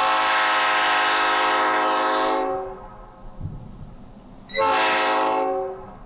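Multi-chime diesel locomotive air horns mounted on a truck's roof, sounding a chord in two blasts: a long one of about two and a half seconds, then a shorter one about four and a half seconds in.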